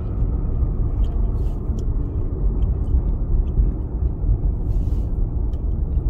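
A car being driven: a steady low rumble of engine and road noise heard from inside the cabin.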